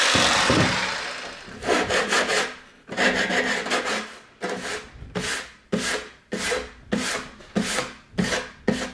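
An electric jigsaw runs down and stops within the first second. Then a hand tool is rubbed back and forth over the freshly sawn mitred end of a pine door trim board, smoothing the cut, in about a dozen even strokes, roughly one and a half a second.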